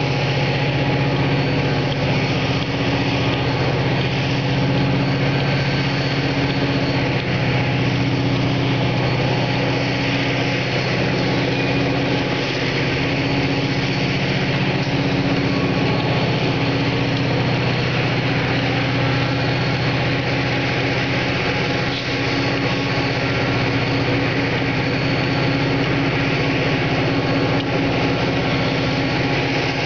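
Diesel freight locomotives running with a steady, unbroken engine drone as the train of hopper cars moves slowly through the yard.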